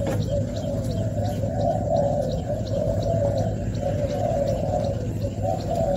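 Spotted doves cooing, several overlapping low, wavering coos running on without a break.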